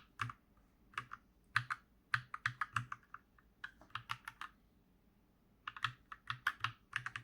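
Keys on an Akko 3068B Plus mechanical keyboard with linear switches being pressed: scattered single clacks and short runs, a pause of about a second, then a quick flurry of presses near the end, as the lighting brightness and effects are stepped through.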